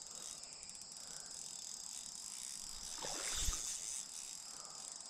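Steady high-pitched chorus of insects trilling along the creek, with a brief dull thump about three and a half seconds in.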